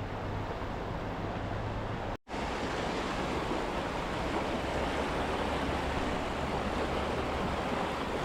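Steady rush of river water, cut off by a sudden split-second dropout about two seconds in.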